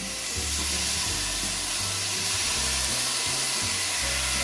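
Garlic, onion and seasoning mix sizzling steadily in hot sesame oil in a frying pan, under background music with sustained low notes.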